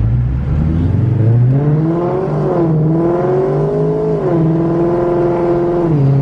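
Ford Mustang Cobra's V8 accelerating through the gears: its pitch rises, drops at a shift about two and a half seconds in, rises again and drops at a second shift, then holds steady and falls near the end.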